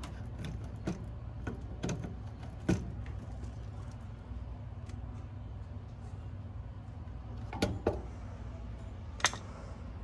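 Sharp, scattered clicks and taps of a screwdriver working the terminal screws on an air conditioner's control-board terminal block as a wire is fastened back in: three in the first few seconds, two close together near the end and one more just after. A steady low hum runs underneath.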